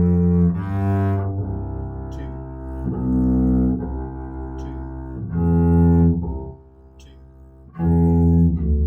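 Double bass bowed arco, playing a slow line of long sustained notes one after another. Near the end it drops much quieter for about a second before a loud note comes back in.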